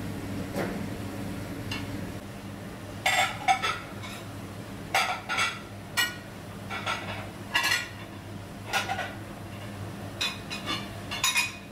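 Dishes and metal utensils clinking and clattering in irregular bursts as they are handled, starting about three seconds in, over a steady low hum.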